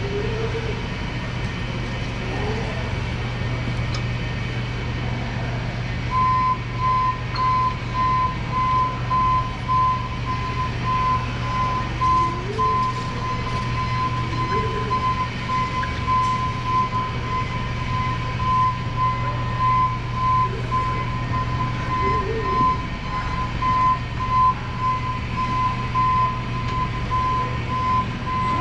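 Cat Mitsubishi FBC18N electric forklift driving, its warning beeper sounding a steady run of short beeps from about six seconds in, over a steady low hum and brief rising and falling motor whines.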